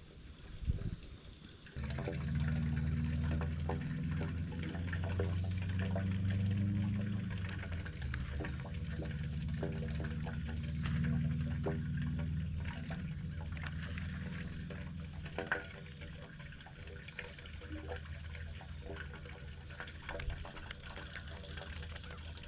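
A small boat motor starts about two seconds in and runs with a steady low hum, over water sounds.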